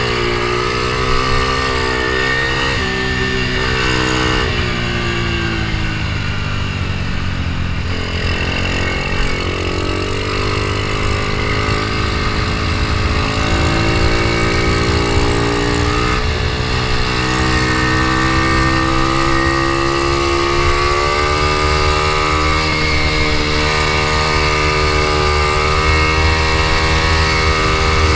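Ohvale mini GP bike's single-cylinder four-stroke engine heard from on board at racing speed, its pitch rising and falling with the corners. It drops a few seconds in as the bike slows for a bend, then climbs again as it accelerates out.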